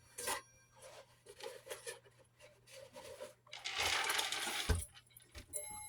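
Metal clock-movement parts clinking and being handled, with small ticks and clicks, then a scraping rustle about three and a half seconds in that ends in a knock. Near the end the clock's chime rods ring faintly.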